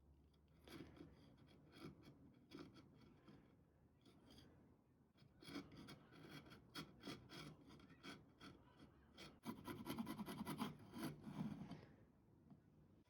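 Faint scraping, rubbing and light clicking of a wooden side table's parts and fittings being handled and fitted back together. A quicker run of clicks and scrapes comes near the end.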